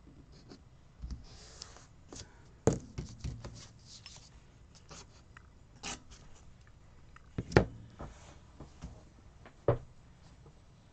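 Hands working a paper planner page: rustling of washi tape and paper with several sharp taps and knocks. The loudest comes about two thirds of the way through, as a steel ruler is handled and set down on the desk.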